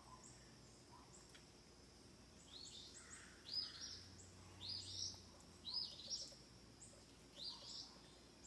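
Songbird chirping: short, high, quickly falling notes, often in close pairs, repeated about once a second from a couple of seconds in.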